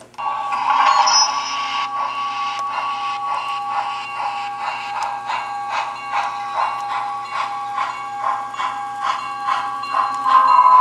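The sound decoder of an HO-scale Broadway Limited USRA Light 2-8-2 steam locomotive model is ringing its locomotive bell, about two strokes a second over a steady ringing tone. It grows louder near the end as the model comes closer.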